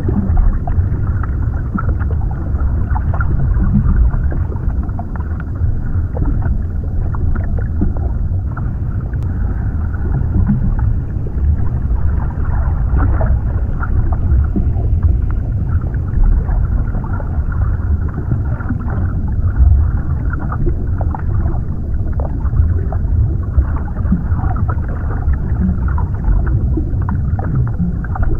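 Underwater ambience: a steady deep rumble of water with many small scattered clicks and crackles over it.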